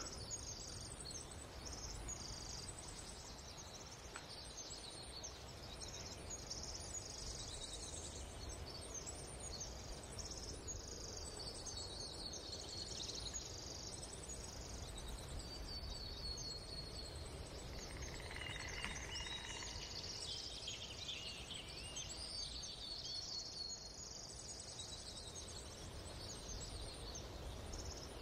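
Faint ambient background with high, rapidly repeated chirping throughout, bird- or insect-like, over a low steady hum, and a few gliding whistles about 18 to 24 seconds in.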